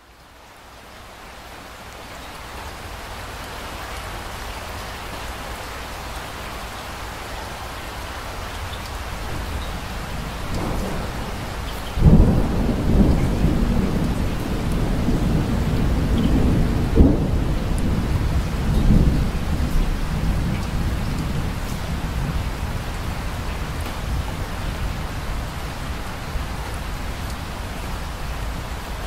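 Steady rain that fades in at the start. About twelve seconds in a sudden thunderclap breaks out, and thunder rolls on in several swells for about seven seconds before the rain carries on alone.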